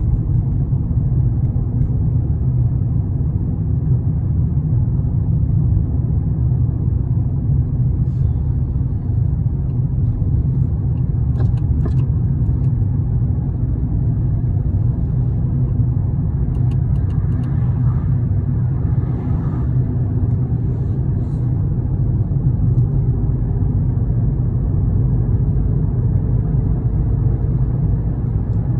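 Steady low rumble of a motor vehicle on the road, constant in level with no changes of pace, with a few faint clicks partway through.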